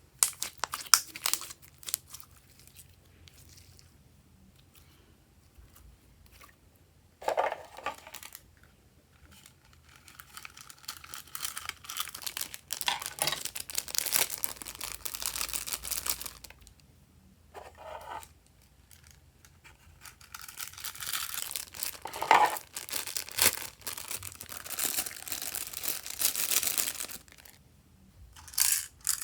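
Hands working slime, stretching and squeezing it, giving sticky crackling and popping in several spells of a few seconds each, with quiet gaps between them.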